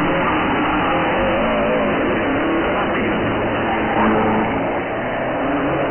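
Classic Subaru rally car's flat-four engine revving up and down as it is driven hard around the course, with a brief louder surge about four seconds in.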